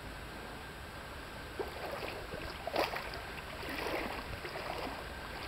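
Seawater splashing and lapping, with a few short, irregular splashes.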